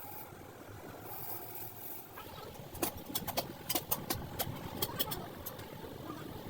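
A quick, irregular run of about a dozen sharp taps or knocks over a steady background noise.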